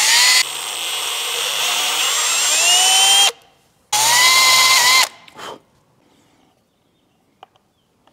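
Cordless drill boring through a thin metal mounting plate, its motor whine rising in pitch as it spins up. It runs until about three seconds in, stops, then runs again for about a second.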